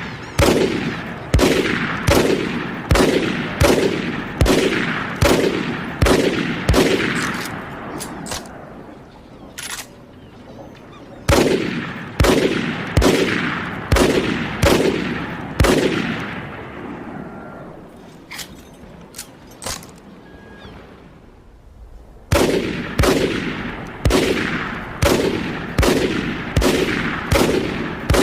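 Loud sharp bangs fired in a steady run of about one and a half a second, each ringing out in a long fading echo. The run stops twice for several seconds, with only a few scattered single bangs between, then starts again.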